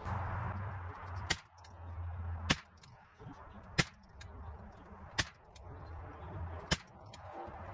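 Ruger 10/22 semi-automatic .22LR rifle firing a five-shot group, one sharp crack about every second and a half.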